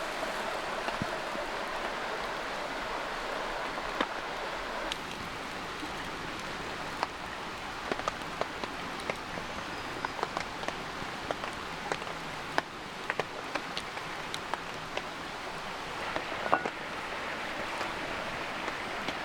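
Steady rainfall: a constant hiss of rain with scattered sharp taps of individual drops striking surfaces.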